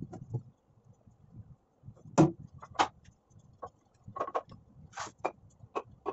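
Short wooden knocks and clacks of plywood pieces being handled and set down on a concrete floor, irregular, the two loudest a little after two seconds in.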